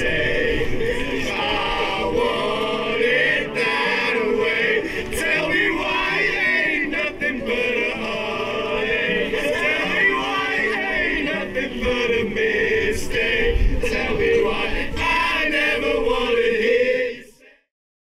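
A choir singing, with sustained voices that fade out to silence about a second before the end.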